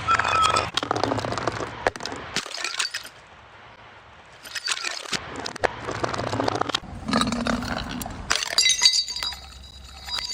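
Glass bottles breaking: repeated crashes and clinks of shattering glass, with a short lull about three seconds in and a bright ringing near the end.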